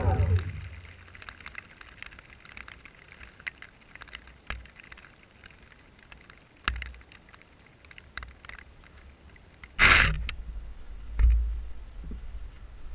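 A motor's whine falls away in the first half second. Then come light wind rumble on the microphone and scattered faint ticks of grass against the camera. About ten seconds in there is a short loud rustle as the camera is handled and picked up.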